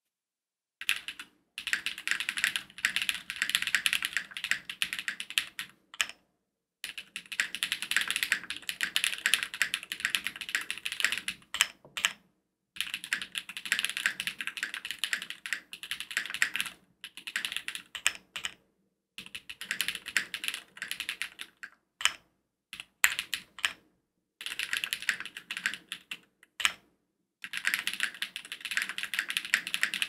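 Rapid typing on an Owlab Jelly Epoch custom mechanical keyboard fitted with "Black Popcorn" frankenswitches (Hyperglide black bottom housing, Kailh black stem, Alpaca top) on an FR4 plate, under GMK Maestro ABS keycaps. The keystrokes come in dense runs of several seconds, broken by short pauses.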